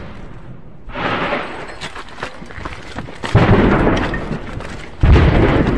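Ammunition depot cooking off in a chain of secondary explosions: a continuous rumble with crackling pops of detonating rounds. It swells about three seconds in, and a louder blast breaks in near the end.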